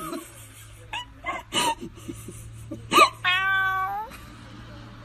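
Domestic cat meowing: a few short chirp-like calls about a second in, then a sharp rising call near three seconds, followed by a drawn-out meow.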